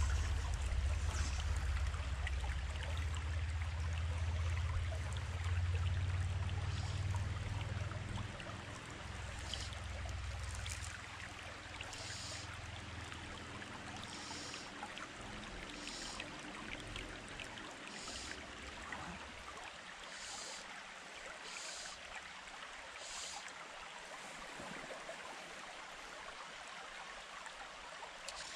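Shallow stream running over a rocky bed, a steady watery rush. A low rumble in the first ten seconds or so fades out, and from about halfway through there is a string of short, high swishes every second or two.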